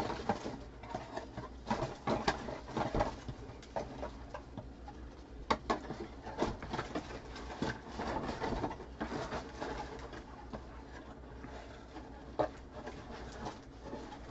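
Card boxes and pack wrappers being handled and searched through: irregular rustling and crinkling with scattered light clicks and taps.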